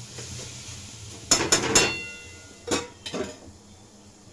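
Steel kitchen utensils clinking against a pot while the simmering mooli sabzi (radish vegetable dish) is checked. There is a quick run of three sharp metallic clinks about a second and a half in, then a few lighter ones around three seconds.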